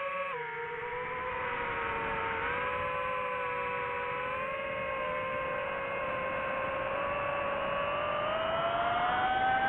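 DJI FPV drone's motors and propellers whining. The pitch drops suddenly just after the start, then climbs slowly, stepping up near the end.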